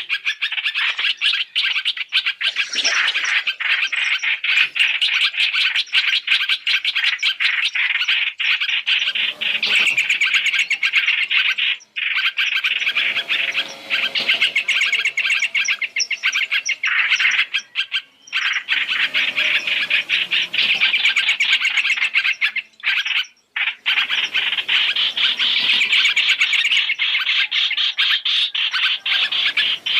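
Hoành hoạch (trao trảo) bird calls played as a trapping lure: a dense, continuous run of rapid, high chattering calls from a '3 in 1' lure mix, broken by a few short pauses.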